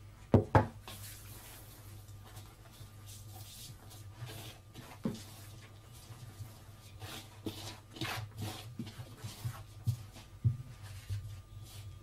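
Hand mixing flour and sour milk into a wet dough in a metal bowl: soft rubbing and stirring sounds with scattered light knocks against the bowl. Two sharp knocks about half a second in are the loudest sounds.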